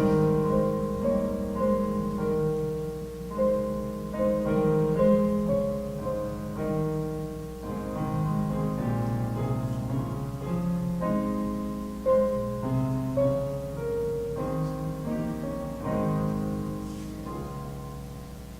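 A piano playing slow, chordal music, with held chords that change about every second.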